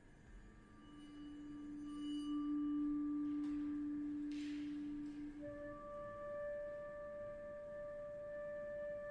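Chamber-ensemble music: a long held low note, nearly pure in tone, swells and fades, and about halfway in a second held note an octave higher takes over and sustains. Two brief soft rustles sound in the middle.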